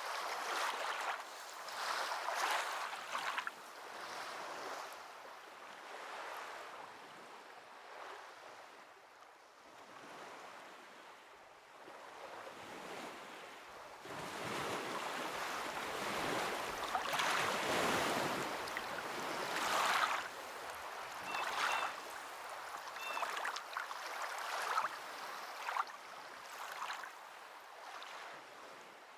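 Waves washing in and out in uneven surges, each swelling and fading over a few seconds.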